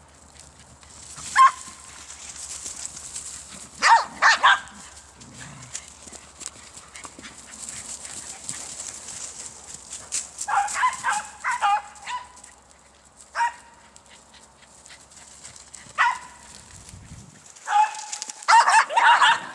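Poodles barking at play: single sharp barks and quick runs of several, scattered through, with a dense flurry of barking near the end.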